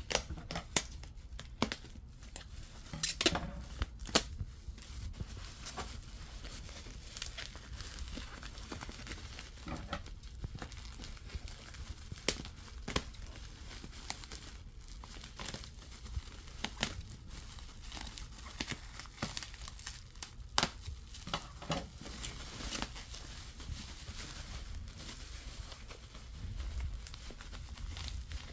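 Plastic bubble wrap crinkling and tearing as it is pulled open by hand, with irregular sharp crackles.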